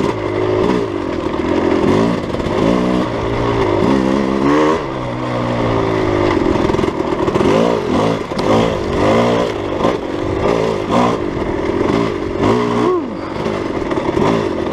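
Dirt bike engine on the trail, revving up and dropping back again and again as the throttle is opened and shut. On the falling stretches the Rekluse auto-clutch stays locked, so the engine is braking the bike.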